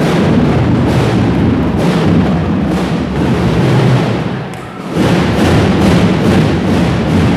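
School drum and lyre band playing: loud drums with mallet-struck lyres. The sound dips briefly about four and a half seconds in, then the full band comes back in.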